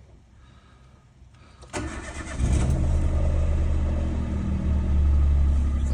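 Peugeot 107's 1.0-litre three-cylinder petrol engine cranks for under a second, catches, and settles into a steady idle. The new ignition coil has cured the cylinder misfire, and the engine sounds so much better.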